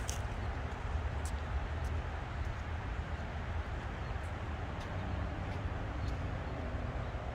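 Steady low outdoor rumble, with a few faint sharp clicks scattered through it.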